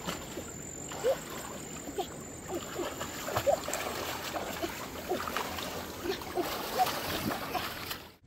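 Hands sloshing and splashing through shallow muddy water, a run of irregular small splashes and plops while groping through the mud by hand. It cuts off suddenly near the end.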